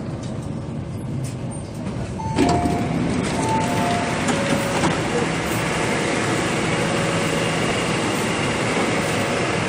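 MTR Kwun Tong Line C-train running in at a station platform. About two and a half seconds in, the train and station noise suddenly gets louder, with a few short high tones over the next few seconds.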